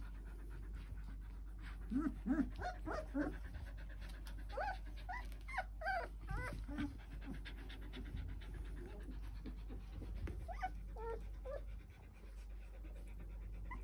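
Four-week-old Australian Shepherd puppies at play, giving short, high squeaky yips and whines in quick clusters. There is one burst from about two to seven seconds in and a shorter one about ten seconds in.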